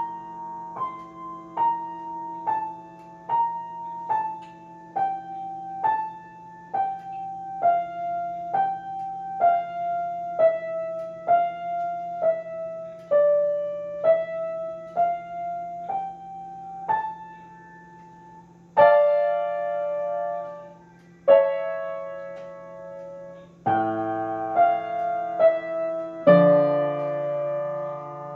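Grand piano played solo: a slow melody of single notes, about one a second, over a held low note. Near the end come a few louder chords, each left to ring for a couple of seconds.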